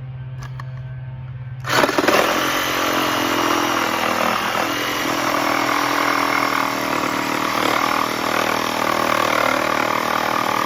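Cordless reciprocating saw (Ryobi ONE+ 18V) switching on about two seconds in and running steadily, its motor noise dense and loud. A faint steady hum comes before it.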